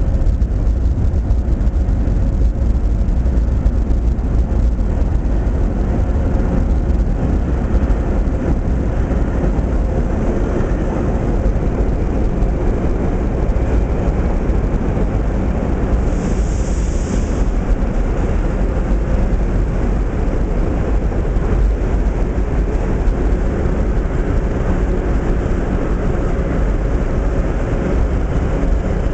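Vintage R1–R9 subway train running through an underground station without stopping: a steady, loud rumble of wheels on rail with a steady motor whine, and a brief high hiss about halfway through.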